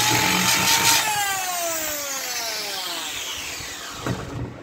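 Electric drill boring a hole through a water pump's housing piece; about a second in the motor is released and winds down in a falling whine. A short knock near the end.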